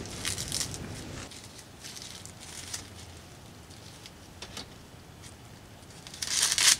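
Light scattered rustles and clicks, then a short, loud crinkling rustle near the end as a small bag is handled.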